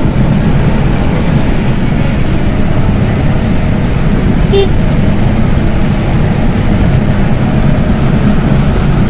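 Steady engine and road noise inside the cabin of a 2022 Suzuki Alto driving at highway speed, mostly low in pitch, with one brief click about halfway through.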